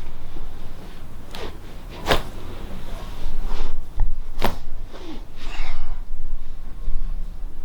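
Joints of the spine popping under a chiropractic adjustment: two sharp cracks about two and a half seconds apart, with a breath near the end.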